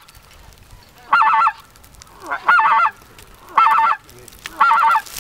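A specklebelly (greater white-fronted) goose call, blown four times about a second apart. Each call is a quick rolling run of high notes, the same each time, used to bring the flock overhead in closer.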